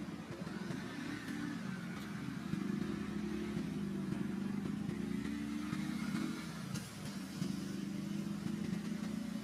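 A motor vehicle's engine running with a steady low hum, growing louder over the first two to three seconds and holding there.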